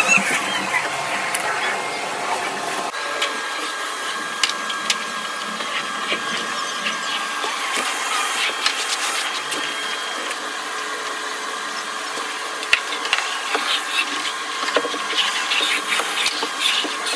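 Vacuum cleaner running steadily, a hiss with a thin whine over it and scattered light clicks; the sound thins out about three seconds in.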